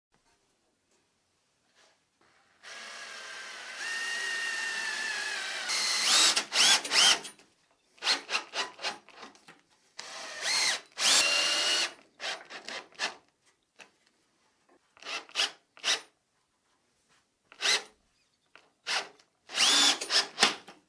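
Cordless drill/driver driving wood screws through a swivel caster's steel mounting plate into a multiplex block. One long run of the motor, rising in pitch partway, then many short bursts as each screw is driven home.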